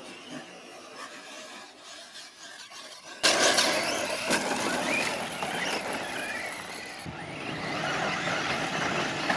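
Radio-controlled cars racing on a dirt track: faint at first, then suddenly loud about three seconds in. High motor whines rise and fall as the cars accelerate and brake, over the hiss of tyres on dirt.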